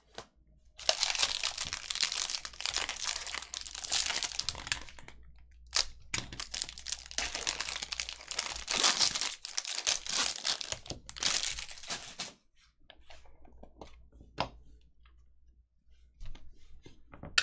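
Foil wrapper of a Bowman Chrome trading-card pack being torn open and crinkled, in two long stretches of crackling. After that come quieter light taps and rustles as the cards inside are handled.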